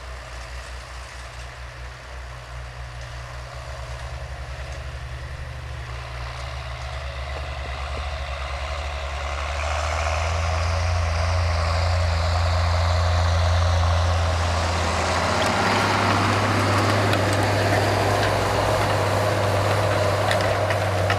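Farm tractor's diesel engine running steadily, growing louder over the first half as it draws near, its note shifting about two-thirds through, with a rising hiss of mechanical noise over it.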